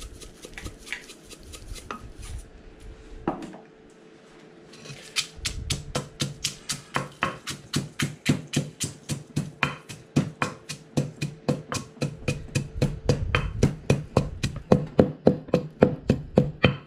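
Mortar and pestle pounding papaya salad: a steady beat of about four strikes a second that starts about five seconds in and grows louder toward the end, after a few scattered knocks.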